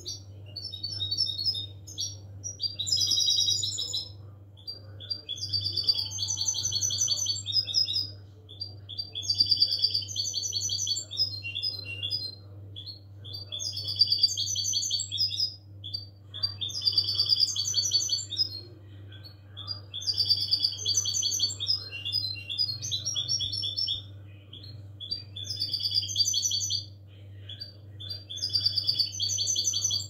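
European goldfinch singing: a run of short twittering song phrases, one every three seconds or so, over a steady low hum.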